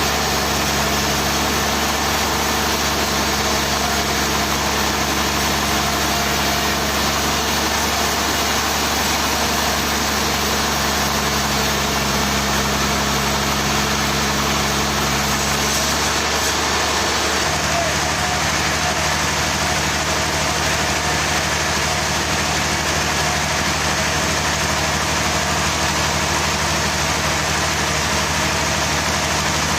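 An engine running steadily, its note changing slightly about halfway through.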